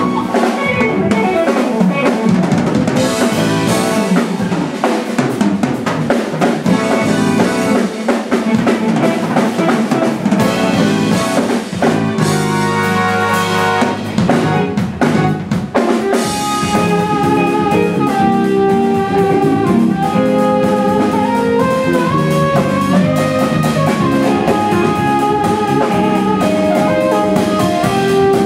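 Live rock band playing: drum kit, electric bass and electric guitar, with a keytar synthesizer playing a lead line.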